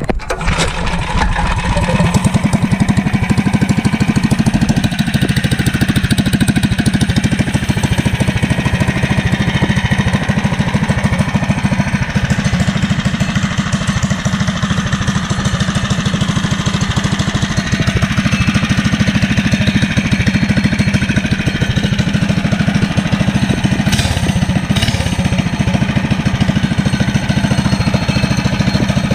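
Freshly rebuilt 440cc single-cylinder race-bike engine, built with a 92mm flat-top piston, billet rod and a twisted hot cam, firing up right at the start and running steadily on its test run. It sounds good and strong, a sign the rebuild went right.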